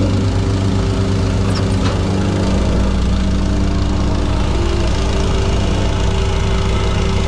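An engine running steadily, typical of the site's compact equipment, with a slight change in its low note about two and a half seconds in.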